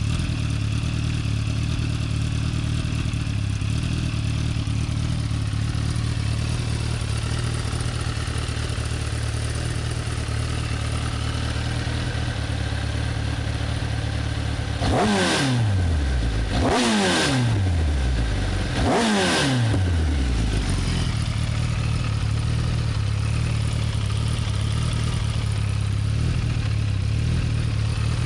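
Kawasaki ZX-10R inline-four engine idling through an Akrapovič link pipe and stock silencer, with three quick throttle blips a little past halfway, each revving up and falling back to idle.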